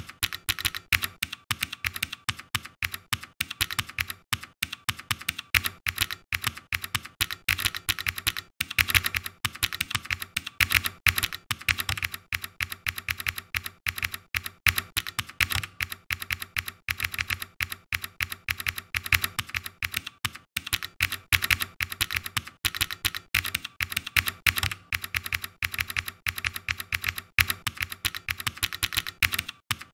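Typing on a computer keyboard: a fast, continuous run of keystroke clicks, several a second, with only brief pauses.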